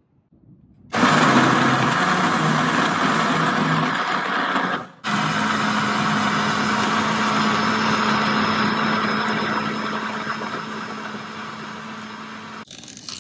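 Countertop blender motor running at full speed, blending shallots, garlic and soaked dried chilies into a smooth chili paste. It starts about a second in, breaks off for a moment partway through, then runs on with a steady hum, gradually fading, and stops near the end.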